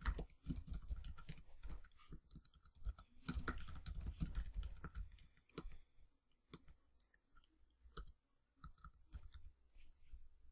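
Faint typing on a computer keyboard: quick runs of keystrokes for the first several seconds, then scattered single clicks.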